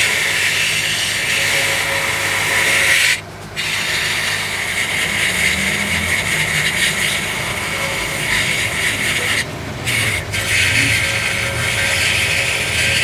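Angle grinder's disc grinding a cast iron tractor transmission housing, a loud steady grinding hiss. It dips briefly three times, about three seconds in and twice around nine and a half to ten seconds.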